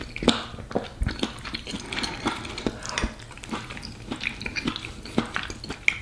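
Metal spoon clinking and scraping in a ceramic bowl of thick pea stew, with close-up chewing and mouth sounds between spoonfuls; many short sharp clicks spread irregularly through it.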